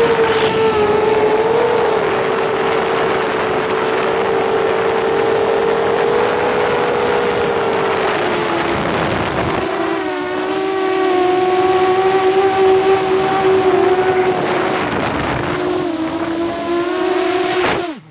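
A 7-inch FPV quadcopter's motors and propellers whining steadily in flight, heard with wind noise. The pitch sags a little now and then and drops slightly about halfway through. Right at the end the whine falls away sharply with a quick downward glide.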